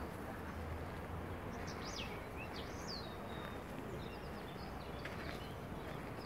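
Small songbirds chirping a few short, high, sweeping notes, with a quick trill about three seconds in, over a steady background hiss.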